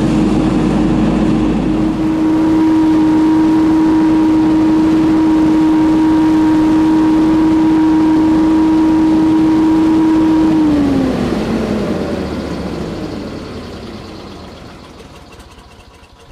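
Ferris FB2000 Hurricane stand-on debris blower, its Briggs & Stratton Vanguard engine and fan running flat out with a steady whine. About ten seconds in it winds down, dropping in pitch and fading away over the last few seconds.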